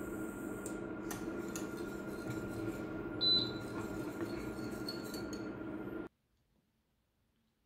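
Wire whisk stirring thick chocolate glaze in a stainless steel saucepan on an induction hob, with light clicks of the whisk against the pan and one bright clink about three seconds in, over a steady hum. The hum stops abruptly at about six seconds as the pan is lifted off the hob, leaving near silence.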